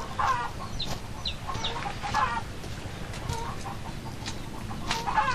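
Chickens clucking: a handful of short calls scattered through, over a steady outdoor background hiss.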